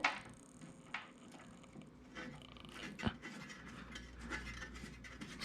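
Faint metal clicks and light scraping of screws and mounting hardware being handled and fitted to the plotter's frame, with a few sharper clicks about a second apart near the start and one around three seconds in.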